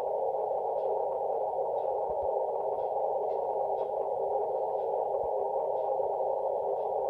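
Kenwood TS-850SAT receiver audio on the 160-metre band: steady static hiss squeezed through a narrow Morse-code filter, with several faint overlapping Morse tones from a busy contest band underneath.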